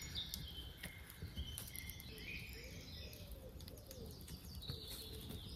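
Wild birds chirping and calling in the surrounding woods, faint, in several short chirps and brief trills, with a few faint clicks.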